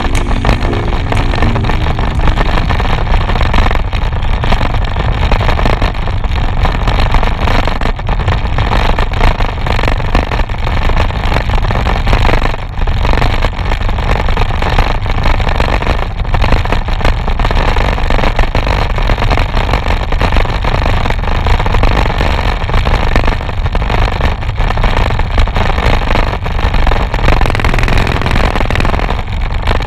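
Wind buffeting the microphone of a handlebar-mounted camera on a moving bicycle: a loud, steady rumble mixed with road noise.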